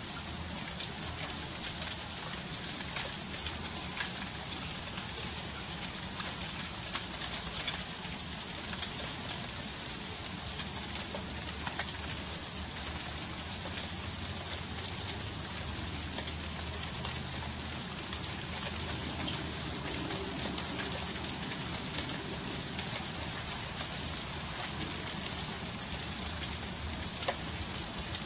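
Freezing rain falling steadily: a constant high hiss with many small, sharp ticks of icy drops striking surfaces.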